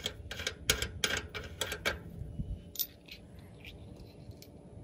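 Brass service-valve fittings on a mini-split condenser handled, giving about ten sharp metallic clicks and taps in the first two seconds, then a few fainter ticks.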